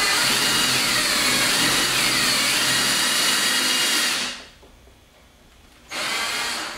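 Power drill boring a 5/16-inch hole through a car's rear spoiler, enlarging a pilot hole in steps so the bit grabs less. The motor runs for about four seconds, its whine dipping and recovering as the bit bites, then starts again for a second run near the end.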